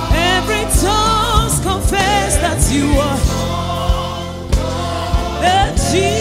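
Live gospel praise band playing: electric bass, drum kit and keyboard under sung vocals that hold long notes with vibrato, with regular drum hits keeping the beat.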